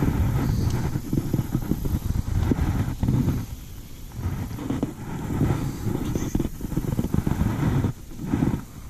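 Wind buffeting the camera microphone: a loud, gusting low rumble that swells and drops every second or so.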